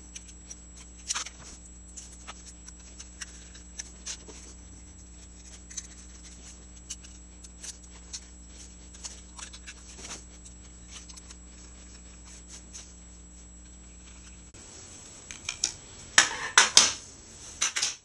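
Small screwdriver turning tiny T6 Torx mounting screws into the side of a Samsung 840 EVO 2.5-inch SSD: faint scattered metallic clicks and scrapes over a steady low hum. The hum stops about fourteen seconds in, and a louder clatter of handling follows near the end.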